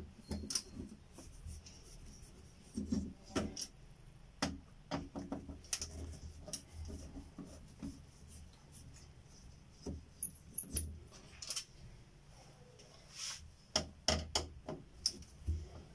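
Handling noise from work on an opened LCD TV's metal back chassis and circuit boards: irregular small clicks, knocks and rubs, with a louder run of clicks near the end.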